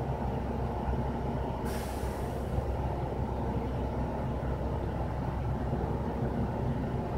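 A steady mechanical hum made of several even tones. Near the start it is broken by a short burst of hissing air, well under a second long.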